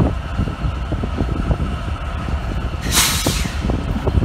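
Norfolk Southern freight locomotives rumbling past at close range, with scattered clicks of wheels over the rails. About three seconds in, a short hiss of air lasts about half a second.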